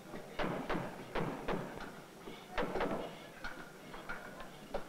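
Irregular sharp knocks of tools striking the wooden boat hull, a couple a second in loose clusters, each with a short ring, as in hand hammering during plank-boat building.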